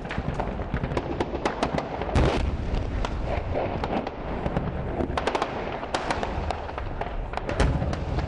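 Heavy, sustained gunfire in a firefight: many sharp, irregular shots, often several a second, overlapping one another. A louder, heavier bang comes about two seconds in and another near the end.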